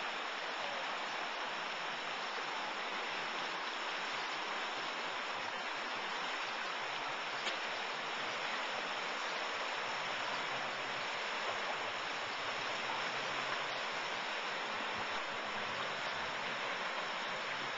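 Shallow, rocky creek running fast over stones and a riffle: a steady, even rush of water.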